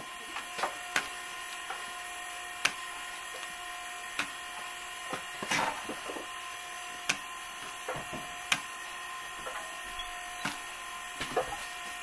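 Irregular sharp clicks and scrapes of hand tools working the tread of a truck tyre, about a dozen in all with a longer scraping cluster near the middle, over a steady machine hum.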